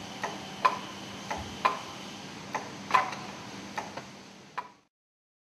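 Sharp metallic clicks and clinks, about ten of them at irregular intervals, from the suspended exhaust valve housing and its lifting gear as it is handled, over a steady low workshop hum. The sound fades out near the end.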